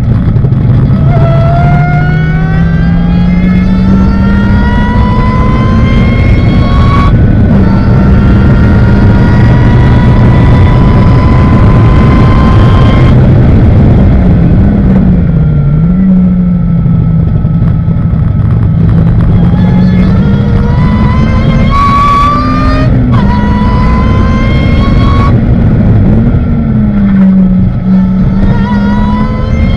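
Ariel Atom's engine heard from on board at racing speed, pulling hard with long rising climbs in pitch, cut off by quick upshifts several times. Midway it lets off and the pitch dips and wavers for a corner before climbing again, all under a heavy rush of wind noise in the open cockpit.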